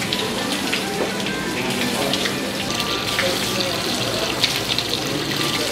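Water running from wall taps and splashing as men wash their hands and face at them during wudu (ritual ablution), with small splashes through the steady flow.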